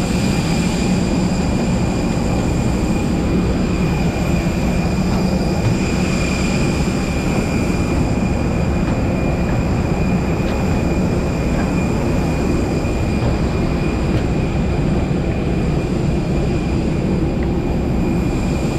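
Steady, loud jet-airliner noise: a low rumble with several steady high-pitched whines on top, unchanging throughout.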